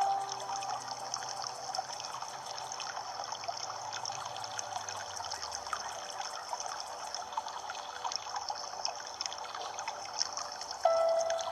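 Water trickling and splashing steadily, a dense patter of small drips and gurgles. Near the end a held musical note comes in suddenly over it.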